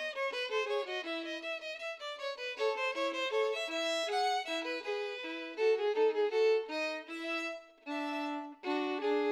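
Violin playing a melody of changing notes, with a short break between phrases near the end.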